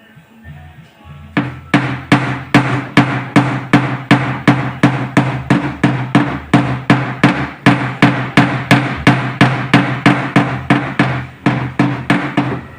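Hammering on sheet metal: steady, even blows about three a second, starting about a second and a half in and stopping just before the end.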